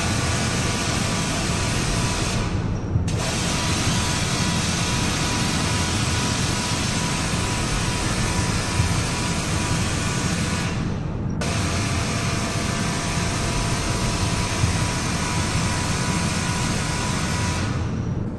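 Pressure washer spraying water onto a car: a steady hiss of spray over a low hum. The spray cuts out briefly about three seconds in, again around eleven seconds, and near the end, as the trigger is let go.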